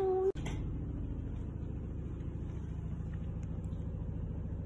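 A domestic cat purring: a steady low rumble with fine rapid pulsing, which begins just after a held vocal note cuts off about a third of a second in.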